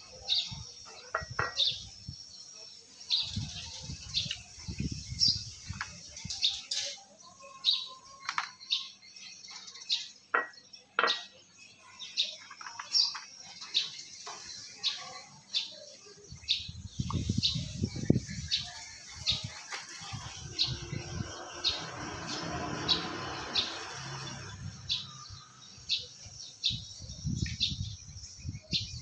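Close-up eating sounds: shells of boiled shellfish clicking as they are pried apart by hand, with stretches of chewing and mouth noise. Small birds chirp over and over in the background.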